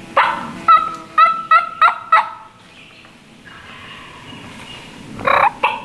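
Turkey calls: a loud call just after the start, a quick run of about five sharp pitched notes over a second and a half, then another loud burst near the end.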